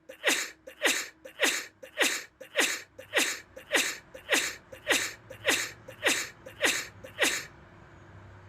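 A person sneezing over and over in rapid succession, about a dozen sneezes a little over half a second apart. Each is a quick falling 'ah' into a sharp hissing 'choo'. They stop about three-quarters of the way through.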